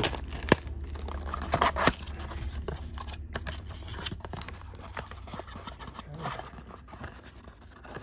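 Trading cards and a foil card pack being handled at close range: scattered clicks and scrapes as cards are slid and flipped, with a short crinkle about two seconds in, over a low steady hum.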